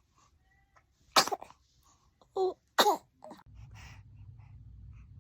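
A baby sneezing twice, about a second in and again nearly two seconds later, with a brief little vocal sound between the sneezes.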